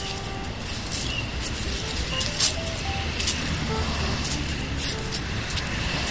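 Steady low rumble of road traffic, with sharp high clicks mostly in the first half.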